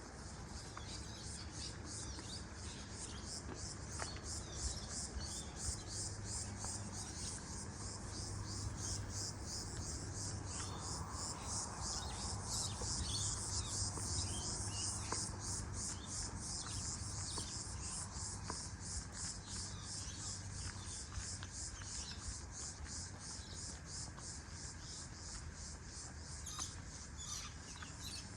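Insects chirping in a fast, even, high-pitched pulsing, cricket-like, over a faint steady low rumble.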